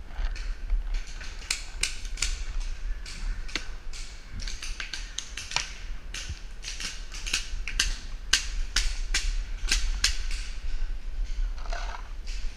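Paintball markers firing around the field: sharp, irregular pops, about two to three a second.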